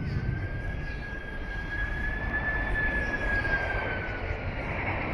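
A distant engine's drone, heard as a thin, steady whine that rises slightly and then fades away about four seconds in, over a low outdoor rumble.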